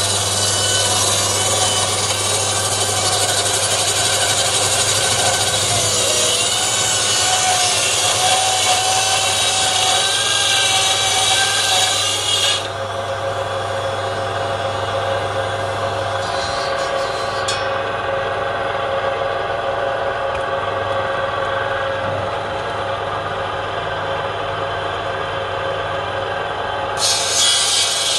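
Table saw ripping lengthwise through a half-round palm log: loud cutting noise for about the first twelve seconds, then the blade runs on without cutting, a quieter steady whine, and cutting starts again near the end.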